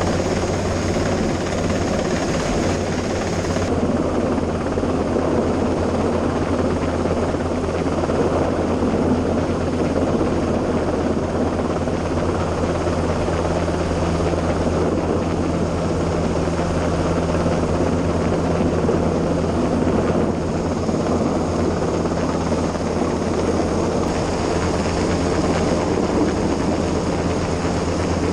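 Coastguard rescue helicopter hovering low overhead, its rotor and engine noise a steady, loud drone, mixed with the rush of wind and bow wash from a lifeboat running at speed.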